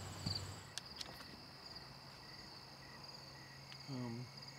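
Crickets chirping in a steady high trill, with a brief murmur from a man about four seconds in.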